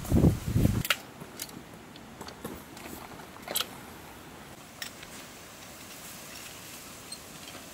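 A few scattered light clicks and taps, as of small objects being handled, over a quiet steady background, after a short louder sound in the first second.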